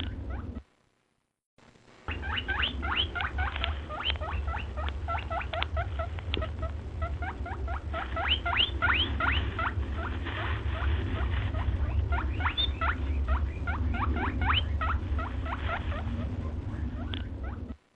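A flock of small birds chirping, many short rising chirps overlapping in a dense chatter over a steady low rumble. A second of silence about a second in breaks it.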